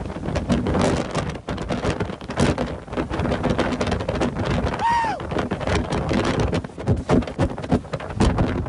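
Strong, gusting storm wind from a tornadic thunderstorm buffeting the microphone, with the hiss of rain. About halfway through there is a short rising-and-falling tone.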